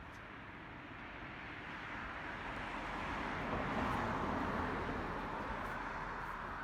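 A road vehicle passing, its tyre and engine noise swelling to a peak about four seconds in and then fading.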